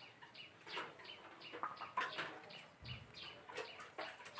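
Chickens clucking, with small birds chirping in a quick repeated pattern; faint.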